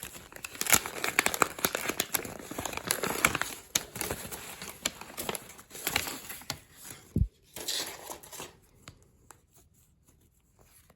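Foil Pokémon card pack wrapper being crinkled and torn open: a dense run of crackling and ripping that stops about eight and a half seconds in, with a single low thump shortly before it ends.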